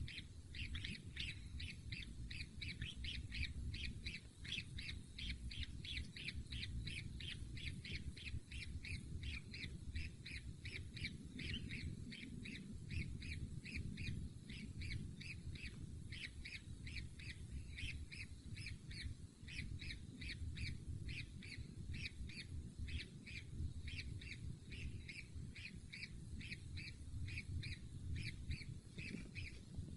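Kingfisher chick calling in a long, steady series of short rasping calls, about three a second, which stop shortly before the end. A low rumble runs underneath.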